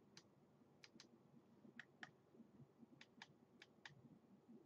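Faint, short clicks of a vape mod's adjustment buttons being pressed, about ten in all, mostly in quick pairs, as the output is set to five volts.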